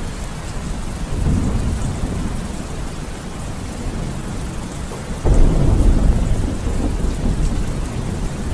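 Steady rain with low rumbling thunder; the rumble swells about a second in, and a sudden louder thunderclap breaks in about five seconds in.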